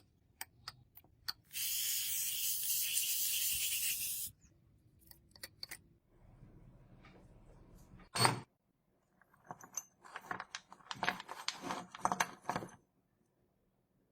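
Small metal clicks and clinks, a hiss lasting about three seconds, a single loud knock about eight seconds in, then a run of rapid clinking and scraping.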